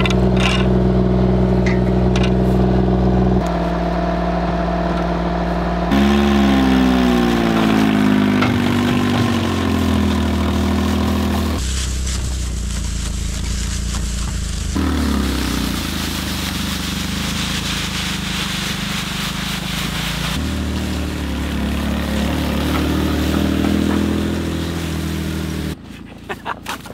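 Pickup truck engine running under load and revving up and down, towing a heavy roll of woven wire fence on a strap. The sound changes abruptly at several cuts.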